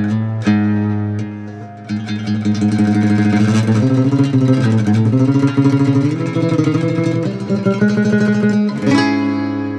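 Cordoba C5-CET nylon-string guitar being played: a chord rings out, then a long run of rapid, rhythmic strokes across the strings, then a new chord struck near the end.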